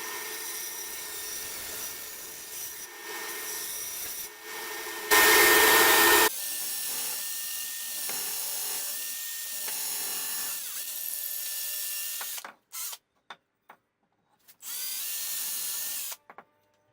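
Woodworking power tools cutting and shaping oak, heard in a series of short segments that start and stop abruptly. The loudest is a brief, harsh burst about five seconds in, and the sound drops to near silence in short gaps near the end.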